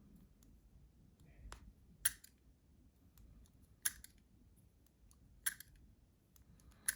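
Small multitool scissors snipping shut, with five short, sharp clicks spaced a second or two apart.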